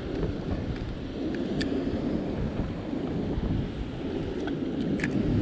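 Steady low rumble of water rushing over a spillway, mixed with wind buffeting the microphone.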